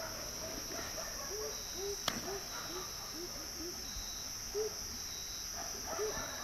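Night-time chorus of crickets and other insects, a steady high-pitched buzz, with short low chirping calls repeating throughout. A single sharp click sounds about two seconds in.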